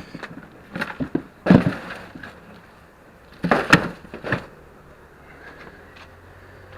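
A handful of sharp knocks and clatters in two short clusters, one in the first second and a half and another around three and a half to four and a half seconds in, followed by a faint steady background.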